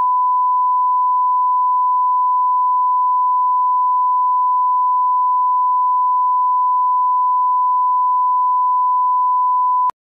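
1 kHz line-up test tone (bars and tone) accompanying broadcast colour bars: one steady, unwavering pure tone that cuts off abruptly near the end.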